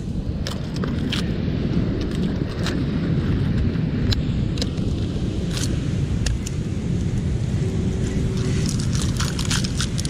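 Mussel shells clicking and crackling at irregular moments as gloved hands pull clumps of mussels off the rocks, over a steady low rumble.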